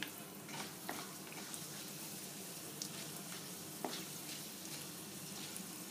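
Hot oil sizzling with scattered sharp pops and crackles as a tempering of mustard, cumin and fenugreek seeds, whole dried red chillies and fresh curry leaves fries in it.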